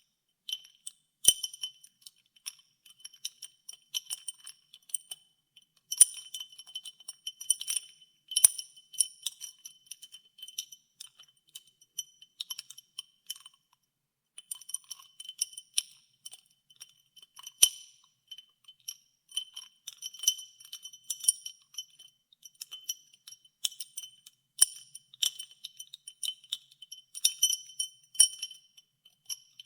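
Ice cubes in water clinking against a glass as it is stirred: a dense run of sharp clinks, each leaving the glass ringing on the same few high notes. There is a short pause about halfway through.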